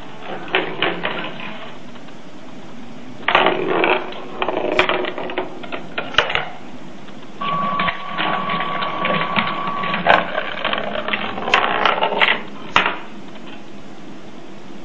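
Student-built electromechanical Rube Goldberg machine running: bursts of clicking and rattling from its moving parts, with a steady high tone held for about two and a half seconds midway.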